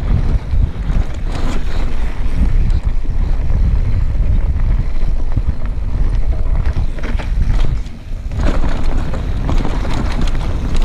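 Wind rumbling on a GoPro's microphone during a fast mountain-bike descent, with the tyres and bike rattling over loose stones. The noise eases briefly about eight seconds in.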